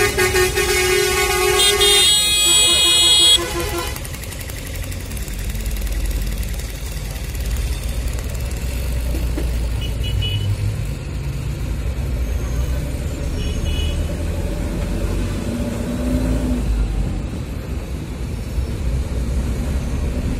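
A vehicle horn sounds loudly at the start, shifts to a different pitch about two seconds in, and cuts off at about three and a half seconds. After that there is the steady low rumble of a moving vehicle on the road, heard from inside the vehicle.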